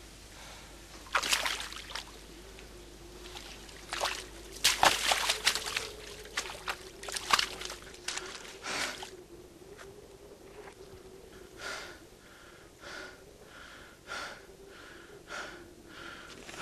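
Water splashing and sloshing as someone moves through shallow marsh water, in irregular bursts. It is followed by a man's heavy gasping breaths, about one a second, over a faint steady hum.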